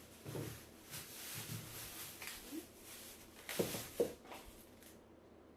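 Food packages being handled while a box is unpacked: rustling, with two sharper knocks about three and a half and four seconds in.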